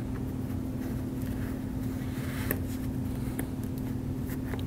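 Steady low room hum with a constant tone, and a few faint light clicks as suture thread and instruments are handled.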